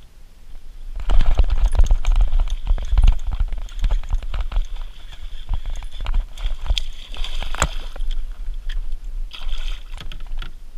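Water splashing and sloshing as a hooked bass is played up to a kayak through reeds and lily pads, starting about a second in, with many sharp clicks and knocks throughout.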